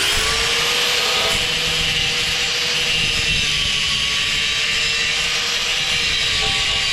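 Electric power tool on metal, its motor spinning up sharply to a steady high whine over a dense grinding hiss, then running evenly.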